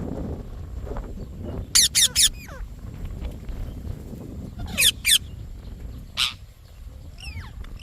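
Indian ringneck parrot calling in short, shrill bursts: a quick run of three calls about two seconds in, another group of two or three about five seconds in, and a single call a little after six seconds.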